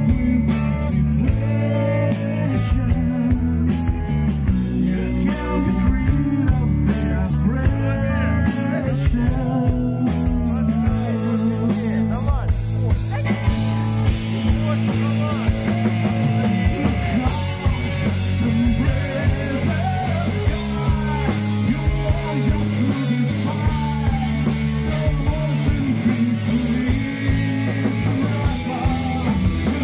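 Live rock band playing: electric guitars, bass guitar and drum kit, with a man singing into a microphone. The sound grows brighter about halfway through.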